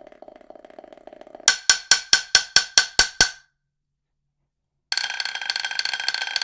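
Drumsticks played on snare practice pads: a soft buzz roll, then eight sharp, evenly spaced strokes at about four a second. After a short silence, a louder, brighter buzz roll starts near the end.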